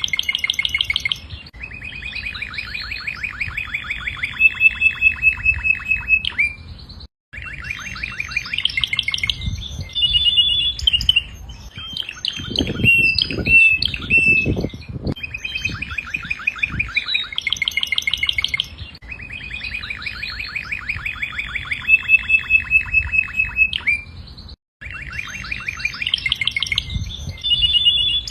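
Domestic canary singing: long phrases of fast trills of repeated notes, some rolling and some higher and whistled. There are a few dull knocks about halfway through.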